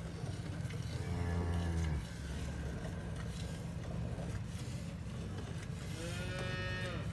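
Two bovine moos, one about a second in and a second near the end, the later one rising and then falling in pitch, over a steady low rumble.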